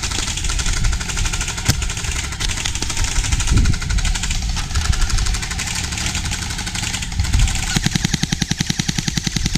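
Electric airsoft guns firing on full auto, a dense rattle of rapid shots. Near the end it settles into one fast, evenly spaced stream, from an airsoft UMP-style submachine gun.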